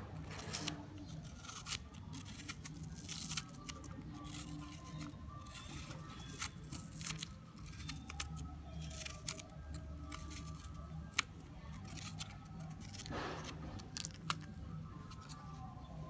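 Long fingernails tapping and scratching on an apple's skin, making irregular sharp clicks and taps, with faint background music underneath.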